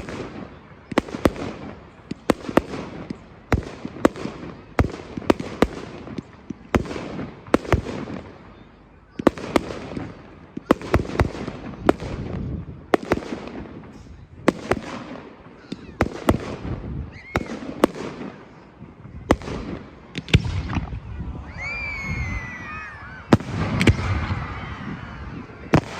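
Aerial fireworks bursting one after another, each a sharp bang with a fading rumble and crackle, about one a second with a short lull partway through. Near the end, wavering high whistle-like tones sound over the bursts.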